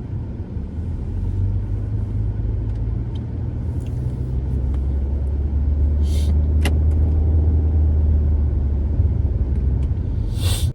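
Car driving: a steady low engine and road rumble that grows a little stronger midway, with a few brief clicks and a short hiss about six seconds in.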